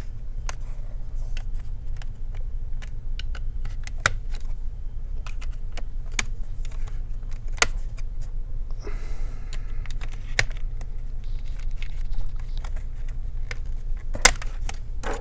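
Scattered small clicks and taps of tools and plastic or metal laptop parts being handled during disassembly, with a brief rasp about nine seconds in, over a steady low hum.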